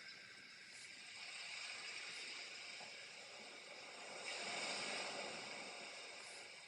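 Soft scratchy brushing of a watercolor brush over cold-press paper, with a louder stroke about four to five seconds in, over a faint steady hiss.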